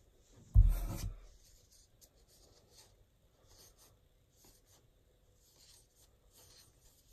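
A thump about half a second in, then faint, soft rubbing and sliding of trading cards being flipped through by hand.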